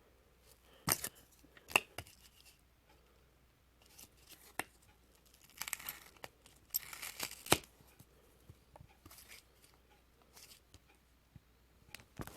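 Intermittent handling noises: a few sharp clicks and short bursts of tearing and crinkling, like paper or packaging being torn and handled.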